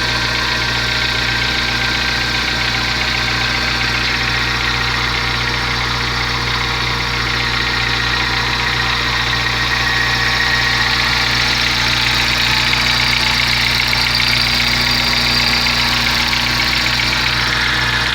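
Volkswagen Gol G4 engine idling steadily, a little louder about halfway through, carrying an engine noise whose meaning the owner does not know.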